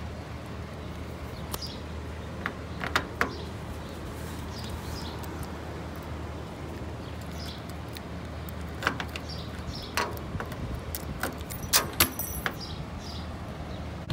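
Clicks and metallic jingles of keys and the latch of a 1964 VW Beetle's locked door being tried, in two spells, around two to three seconds in and again from about nine to twelve seconds in, over a steady low hum.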